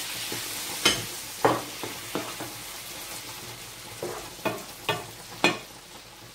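Squid, king prawns and freshly added diced tomatoes sizzling in a frying pan while a wooden spoon stirs them, knocking sharply against the pan about seven times. The sizzle slowly dies down.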